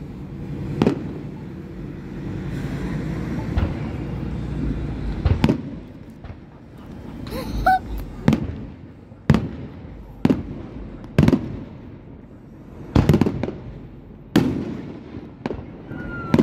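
Aerial firework shells bursting overhead as sharp bangs, each trailing off briefly. Only a couple come in the first few seconds over a steady low background rumble, then they fall about once a second through the second half. A short rising whistle sounds about halfway through.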